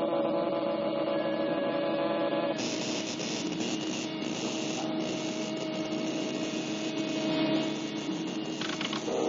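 Cartoon sound effect of an electric machine: a steady hum, joined about two and a half seconds in by a harsher hissing buzz that drops away near the end.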